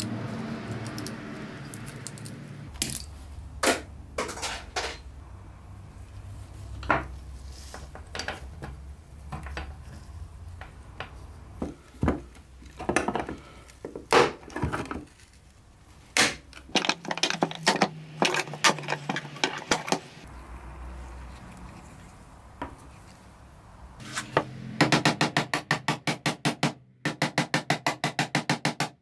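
Hand tools working on an old cabinet's small rusted metal hinge and wooden panel: scattered clicks, knocks and scrapes of metal tools. Near the end, a quick run of hammer taps on the wood, several a second.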